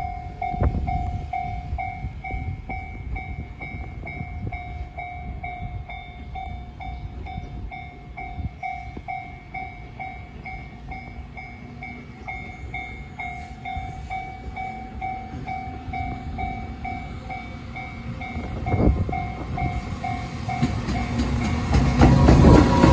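A steady run of repeated dings from a railway level-crossing alarm, a few strokes a second, over a low rumble. Near the end a JR Freight EF210 electric locomotive hauling a train draws up and passes close, and its rolling noise swells to become the loudest sound.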